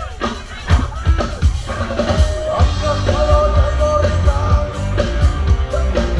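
Rock music with a singing voice, a drum kit and a heavy bass.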